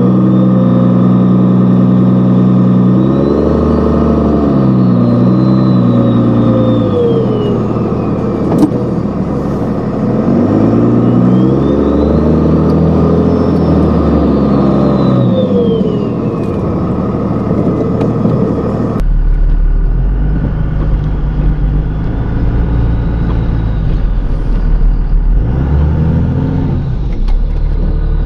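Cummins turbo diesel in a Dodge truck accelerating under load, with the engine note climbing and dropping and a high turbo whistle that rises and falls twice. About two thirds of the way in, the sound cuts to a deeper diesel rumble with a fainter turbo whistle.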